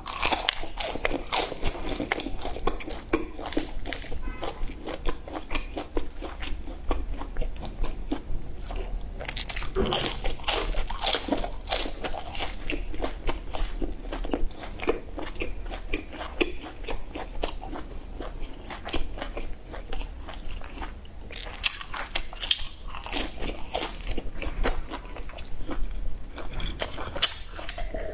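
Biting and chewing of crispy fried starch sausages: the coating crunches in dense bursts of crackly bites, with softer chewing between them.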